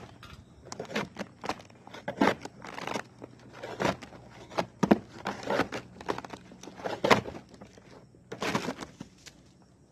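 A hand tool knocking and scraping on old asphalt shingles and roof decking, as shingles are pried up during a tear-off: irregular hits and scrapes, with a short pause near the end.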